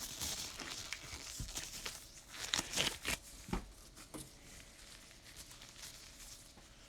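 Disposable gloves being pulled onto the hands: crinkling, rustling and small snaps, busiest in the first half and quieter after.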